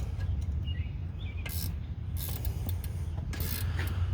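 A few irregular, sharp metallic clicks and scrapes of hand tools working a brake caliper bolt, over a steady low rumble.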